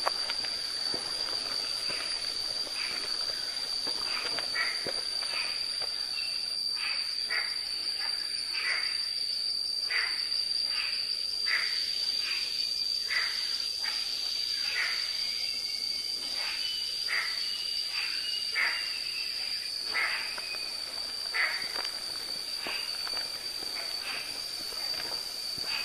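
Steady high-pitched insect drone, with short chirping calls repeating about every second.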